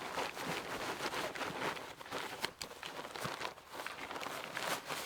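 Rustling and scuffing of fabric handled by hand: the rolled-up awning room being slid into its storage bag, with irregular soft knocks.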